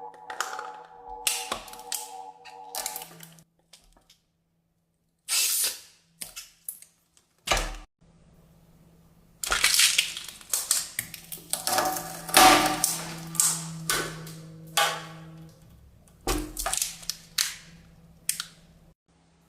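A string of short, crisp clicks, taps and crackling scrapes with a few dull thumps, densest in the middle. A held musical chord fades out in the first few seconds.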